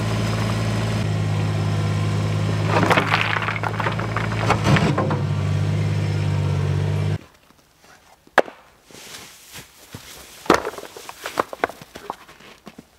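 A small machine's engine running steadily, with rocks clattering a few seconds in. The engine stops abruptly about seven seconds in, followed by scattered crunches and clicks of footsteps on rocks and snow.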